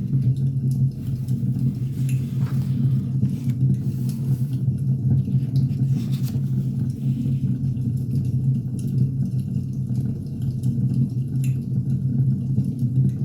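Wood fire burning with a steady low rumble and scattered faint crackles and pops.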